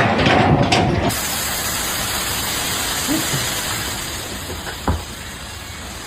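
A steady hiss, like gas or water spraying under pressure, starts suddenly about a second in and slowly fades, with a single knock near the end.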